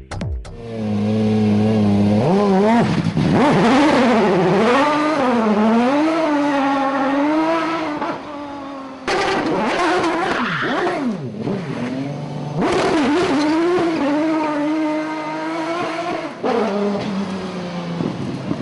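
Aston Martin DBR9 race car's V12 engine revving hard, its pitch rising and falling over and over, while the rear tyres spin and screech as the car slides sideways in its own tyre smoke. The sound breaks off and jumps twice, about nine and twelve and a half seconds in.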